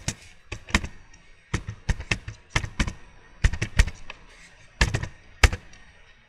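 Computer keyboard typing: about a dozen sharp, irregularly spaced keystrokes as an IP address is keyed in. The last and loudest is the Enter key that starts the ping.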